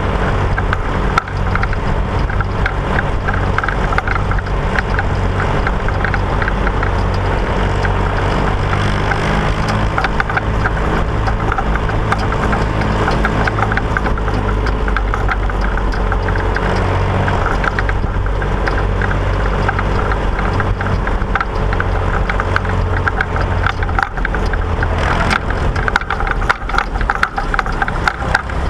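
Massey Ferguson 135 tractor engine running steadily, with a constant low drone and frequent small rattles and knocks throughout.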